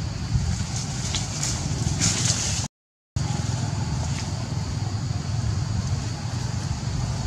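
Steady low rumbling background noise, with faint rustles above it, cut to complete silence for about half a second near the middle.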